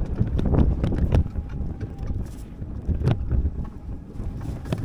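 Wind buffeting the microphone, with an uneven low rumble and a few short knocks.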